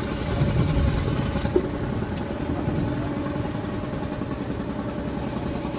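Engine of a wooden fishing boat running steadily, a low rumble with a faint even hum over it.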